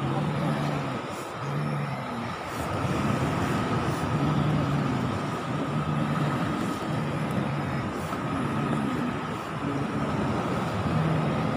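A young man in a possession trance grunts in short, low, voiced bursts about once a second, over a faint steady high-pitched hum.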